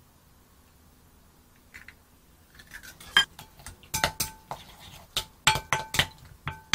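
A wooden spoon stirs minced shrimp and egg white in a glass bowl, knocking against the glass. The knocks start about two and a half seconds in as a run of sharp clinks, several of them leaving the bowl briefly ringing.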